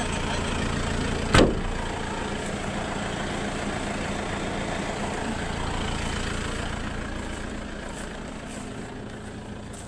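Motor vehicle engine idling steadily, with one sharp knock about a second and a half in; the engine sound eases off over the last few seconds.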